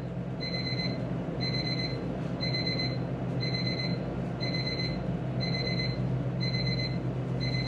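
Electronic beeping: a short burst of rapid high pips repeating about once a second, like an alarm or timer going off, over a steady low hum.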